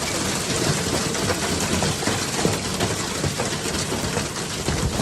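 Severe thunderstorm: heavy wind-driven rain making a loud, steady rush, dense with rapid pattering impacts.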